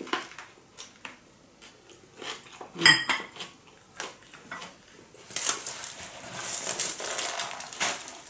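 Close-miked eating: biting into and chewing a soft rice-paper spring roll with fresh herbs and steamed fish, with scattered wet mouth clicks and a short ringing clink of tableware about three seconds in. From about five seconds in, a dense crinkly rustle as fresh herbs are pulled from a foil-lined basket.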